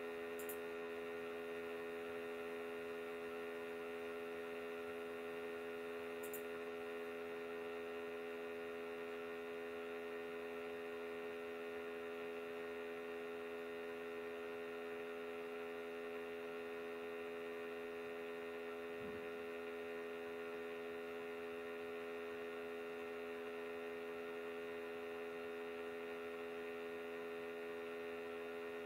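Steady electrical hum: a buzzy mains-type drone made of many even tones that holds unchanged throughout, with a couple of faint ticks near the start.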